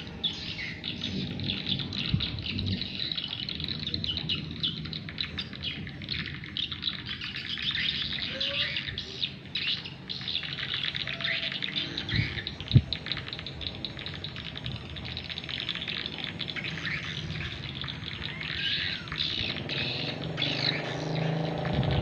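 Swiftlet calls played through a swiftlet-house speaker: dense, rapid high chirping and twittering that keeps going. A low steady hum runs underneath, and a single sharp thump comes about halfway through.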